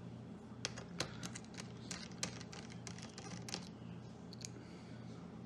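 Small irregular clicks and ticks, a dozen or so over about four seconds, from a screwdriver working small screws out of a laptop's system board, over a faint low hum.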